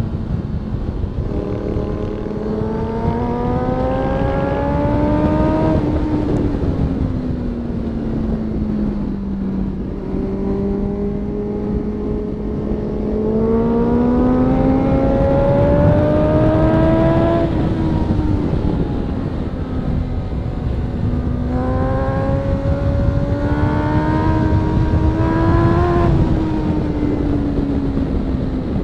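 Honda CB650F inline-four motorcycle engine heard on board over heavy wind rush. It climbs in pitch under throttle three times and falls back in between, with quick shift-like steps in the last climb.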